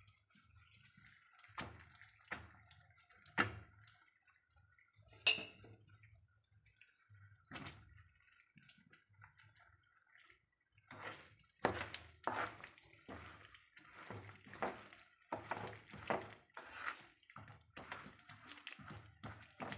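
Small whole vegetables frying in hot oil in a steel pan: the oil crackles and spits in scattered sharp pops, with a couple of louder sharp strikes a few seconds in, and the popping grows much denser about halfway through.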